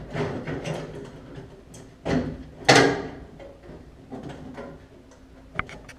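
Clanks and scrapes of metal car parts and tools being handled, with scattered sharp clicks and a louder clatter just under three seconds in.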